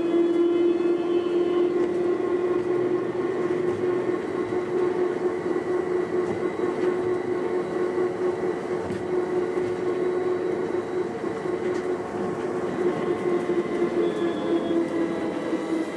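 Uijeongbu Light Rail rubber-tyred driverless train running at speed on its elevated guideway: a steady motor whine over rolling noise. The pitch eases down near the end as the train slows for a station.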